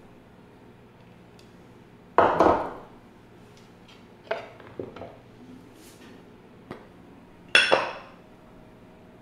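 A wooden spoon knocking and scraping against a glass jar and bowl as a golden liquid is scraped out of the jar. There are a few separate clusters of clinks and knocks; the loudest come about two seconds in and again about three-quarters of the way through.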